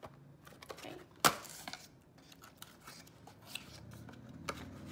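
Quiet rustling and scraping of a cardboard card-deck box being opened by hand, the flap and card stock rubbing, with one sharp click about a second in.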